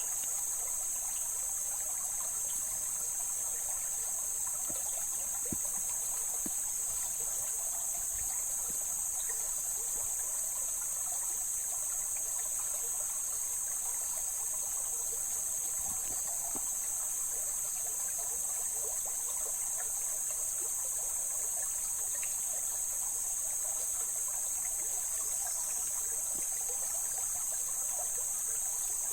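Mountain stream water flowing and trickling steadily over rocks, with a steady high-pitched drone above it.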